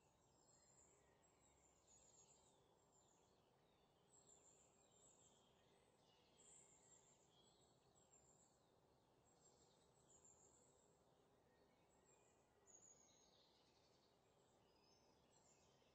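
Near silence: faint background hiss with scattered faint, short high chirps every second or two.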